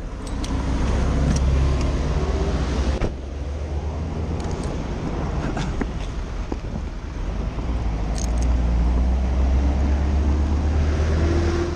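Steady low rumble of a Volkswagen police van driving at speed, engine and tyre noise, with a sudden drop in level about three seconds in before it builds again.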